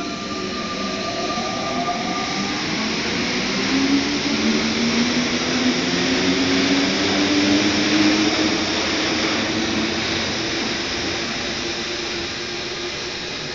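Paris Métro MP89CC rubber-tyred train pulling away from the platform. Its traction motors whine in several tones that rise steadily in pitch as it accelerates, over a steady rushing noise that grows louder and then eases slightly near the end.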